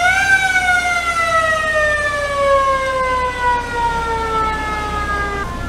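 A siren winding down: one long tone falling slowly and steadily in pitch for about five seconds.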